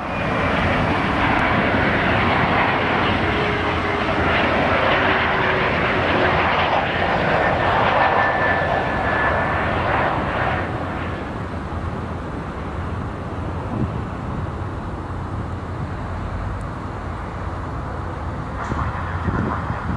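Bombardier CRJ regional jet's twin rear-mounted turbofans landing: a steady jet rush with a whine that falls slowly in pitch. The sound is loudest over the first ten seconds, then eases as the jet touches down and rolls out.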